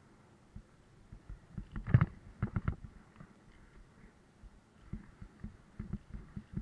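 Bicycle and camera mount rattling over bumps in the pavement: a loud cluster of knocks about two seconds in, more half a second later, then scattered smaller knocks near the end.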